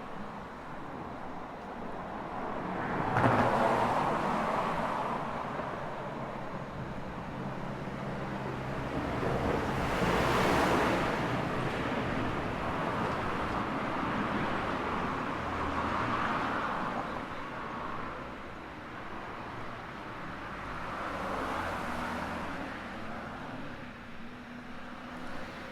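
Night street ambience: road traffic passing, the noise swelling and fading about four times, loudest about ten seconds in, over a faint steady low hum.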